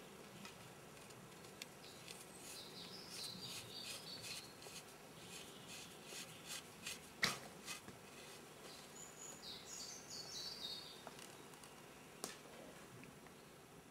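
Birds singing faintly, with a falling run of high chirps about ten seconds in. A few sharp clicks sound over it, the loudest about seven seconds in.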